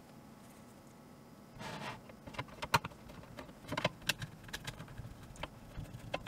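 Phillips screwdriver driving a small screw into the side of a metal network video recorder case: a short scrape about two seconds in, then irregular light metallic clicks and ticks as the screw is turned.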